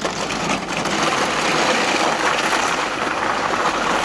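A CRT television's plastic casing scraping and grinding along asphalt as it is dragged behind a car on a rope: a steady, coarse, rattling scrape that grows louder about a second in.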